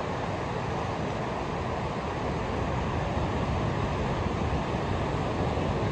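Ocean surf washing onto a beach: a steady rushing noise that swells a little about halfway through.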